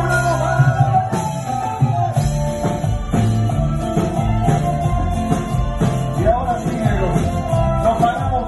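Live band music: guitars over a steady bass line, with hand percussion keeping the beat.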